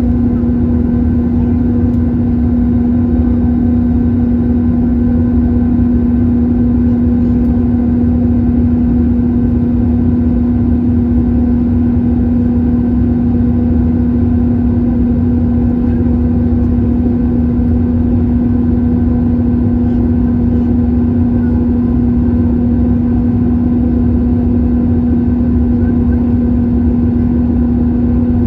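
Airbus A321-231's IAE V2500-series turbofans at climb power, heard as steady cabin noise: a dense low rumble with a strong constant hum and fainter higher hums over it.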